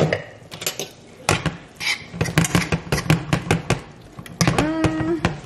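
A metal fork stirring sliced bell peppers and onions in a nonstick frying pan: a quick run of scraping clicks and clinks against the pan. There is a short hummed voice near the end.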